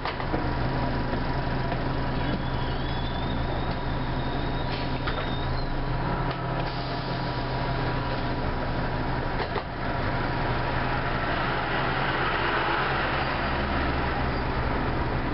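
Diesel engine of an Orion V transit bus heard from inside the cabin, running steadily with a steady whine and a few short rattles and clicks. From about ten seconds in the sound grows fuller, with more rumble and hiss.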